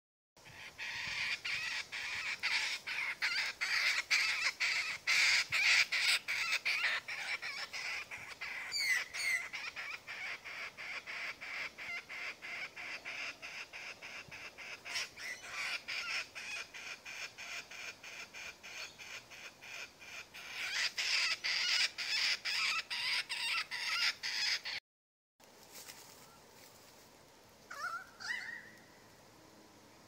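Laughing kookaburras calling together in a long, fast, cackling chorus of rapidly repeated notes while two of them fight. It is loudest in the first few seconds and again about twenty seconds in, then cuts off suddenly about twenty-five seconds in. A short rising bird call comes near the end.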